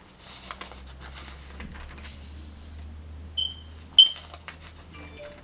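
Hands rustling and handling things while searching through prompts, over a low steady hum. Two short high-pitched beeps sound about three and a half and four seconds in; the second is the loudest sound.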